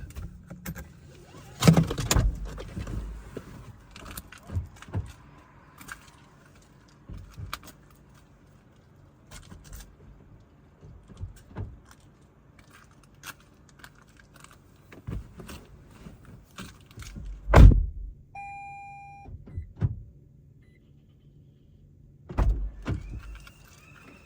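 Clicks, rustles and thunks of someone moving about inside a parked car, with a loud thump like a car door about two-thirds of the way through. Just after it comes an electronic car warning chime of steady tones lasting about a second and a half, then another thump near the end.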